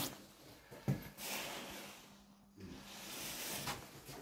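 Close breathing and rustling from the person holding the camera, with one sharp knock about a second in.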